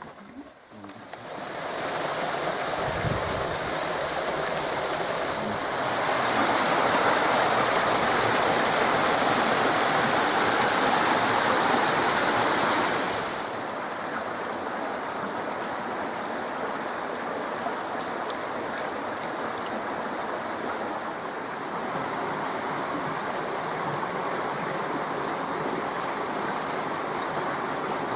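Creek water rushing and cascading over rocks, a steady rush of water. It grows louder for several seconds in the first half, then drops back to a lower, even level.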